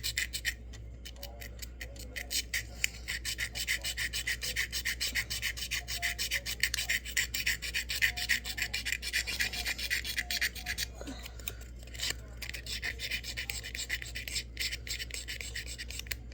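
Sharpie marker tip rubbing quickly back and forth over a small craft piece as it is coloured in: a rapid, even scratchy scribbling with a few brief pauses.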